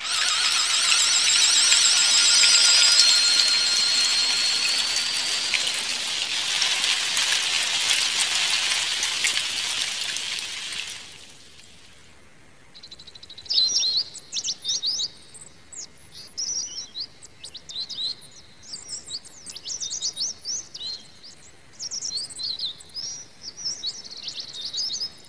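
For about eleven seconds a loud, steady, high hiss with a faint whistle in it plays, then fades out. From about a second later, cartoon forest birds chirp in scattered short, high calls.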